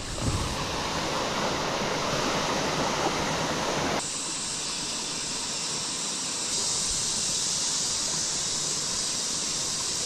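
Steady rushing noise of running creek water; about four seconds in it changes abruptly to a thinner, higher hiss.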